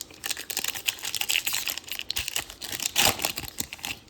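Foil trading-card pack wrapper crinkling as it is handled and torn open: a dense run of crackles, loudest about three seconds in.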